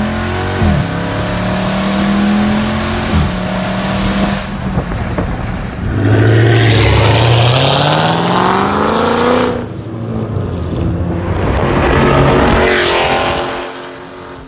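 Straight-piped Dodge Charger Scat Pack's 392 HEMI V8, with cats, resonators and mid mufflers deleted, accelerating hard. The pitch drops sharply at upshifts about one and three seconds in, then climbs in two long pulls; the first cuts off abruptly near ten seconds in, and the sound fades at the end.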